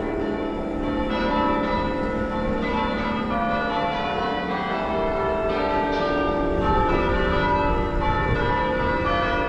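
Church bells ringing changes, many bells struck one after another in a continuous peal, over a low wind rumble on the microphone.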